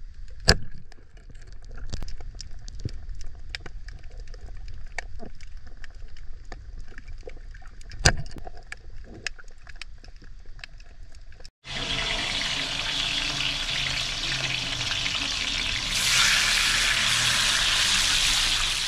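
Underwater ambience with a steady crackle of small clicks and two sharper knocks. About two-thirds of the way through it switches to fish frying in a pan, a dense steady sizzle that grows louder near the end.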